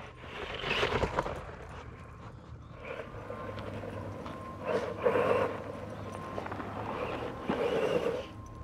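A remote-control toy car running over dusty dirt with a dog chasing it, paws scrabbling on the loose ground. The scuffling comes in three louder bursts: about a second in, around five seconds, and near the end.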